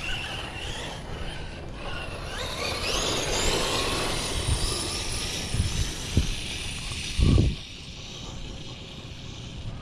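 A 12S Arrma Kraton electric RC truck on a speed run: its brushless motor and gearing whine, climbing steeply in pitch about two and a half seconds in as it accelerates, then fading away. Several short low thumps follow, the loudest a little past seven seconds.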